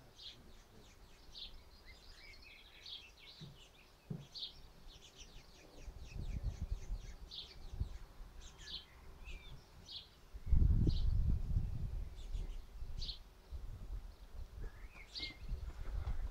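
Small birds chirping in short repeated calls throughout. A low rumble comes in partway through, loudest for about a second and a half just after the middle.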